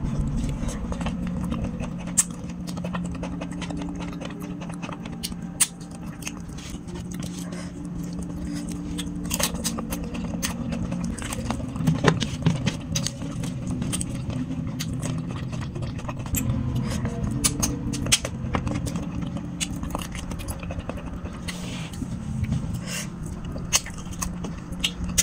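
Eating chicken curry by hand from a steel tray: chewing and biting on chicken, with scattered clicks and scrapes of fingers and bones on the metal tray and a louder flurry about twelve seconds in, over a steady low drone.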